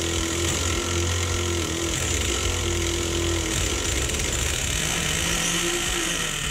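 Small nitro RC engine, the Traxxas engine with a custom liquid-cooling head, being spun over by a handheld Du-Bro electric starter pressed onto its shaft: a steady mechanical whine whose pitch shifts a little past halfway.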